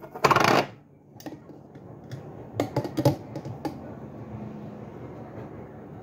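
Spatula scraping and tapping on a plastic mini chopper and its blade, clearing out blended date-and-raisin paste: a brief scrape just after the start, then a few light clicks and taps.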